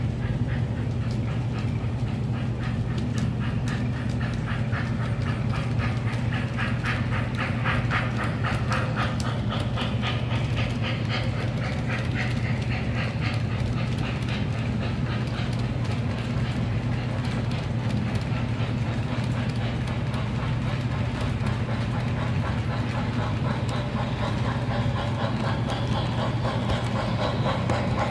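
MTH O gauge Baltimore & Ohio Y6b 2-8-8-2 model steam locomotive running, its Proto-Sound 3 sound system giving a rapid, steady steam chuff over a constant motor hum and the rumble and clatter of wheels on three-rail track. It grows louder near the end as the locomotive passes close.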